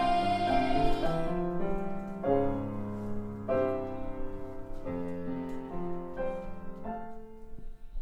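A children's choir's last held note ends about a second in, and the piano accompaniment plays the closing bars alone, a few spaced chords and notes that get quieter and die away near the end.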